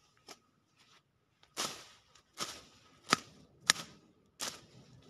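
Leafy plants rustling and stems snapping as they are pulled and broken by hand, in irregular strokes about once a second, with two sharp snaps a little past the middle.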